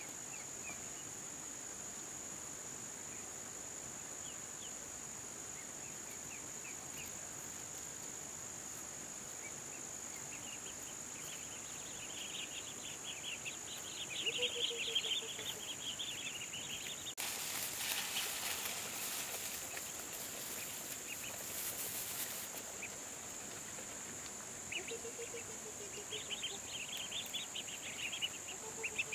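Insects droning steadily at a high pitch, joined twice by bursts of rapid chirping and a few short low calls. A rushing hiss runs for about five seconds past the middle.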